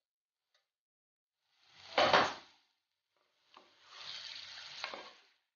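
Wooden spatula stirring marinated chicken pieces in a clay pot on the stove. There is one short wet scrape about two seconds in, then a second and a half of stirring and sizzling with a couple of knocks of the spatula against the pot.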